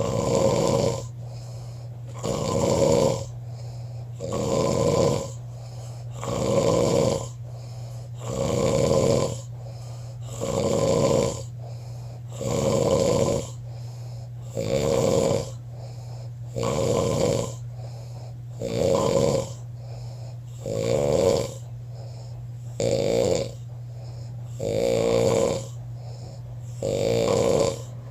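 A person snoring in their sleep: a loud snore about every two seconds, evenly spaced, over a steady low hum.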